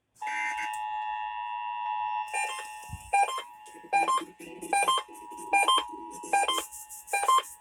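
Emergency Alert System attention signal: the steady two-tone alert (about 853 and 960 Hz sounding together) comes on just after a brief silence. From about two seconds in, a rhythmic beeping joins it, roughly one beep every 0.8 seconds.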